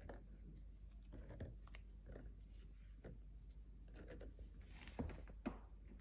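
Faint, scattered small taps and crackles, the loudest about five seconds in: dried dog treats being broken by hand and dropped onto a mat.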